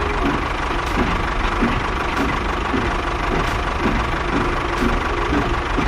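A small motor running steadily, with a faint tick repeating about every two-thirds of a second.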